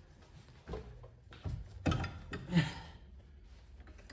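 Steering knuckle with its brake caliper being worked onto the bottom of a new front strut: a few short metal knocks and scrapes, the two loudest about two seconds in and again half a second later.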